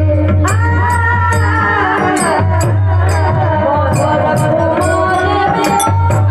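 Indian devotional music in raga Bhairavi: a sung melody that holds and glides in pitch over a steady low drone, with high metallic percussion ticking a regular beat.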